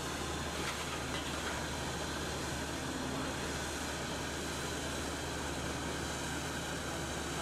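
Diesel engine of a Caterpillar 6015B demolition excavator running steadily: a constant low drone under an even hiss, with no crunching or impacts.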